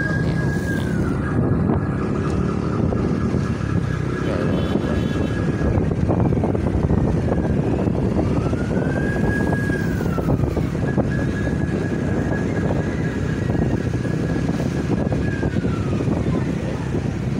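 Motorcycle engines and road noise from riding in a convoy of motorcycles, with a siren wailing over them: its pitch climbs, holds high and falls away slowly, several times over.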